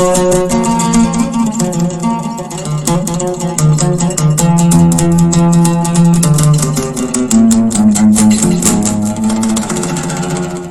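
Solo oud playing a fast run of rapidly plucked notes, with a dense stream of quick picked strokes and changing melodic notes.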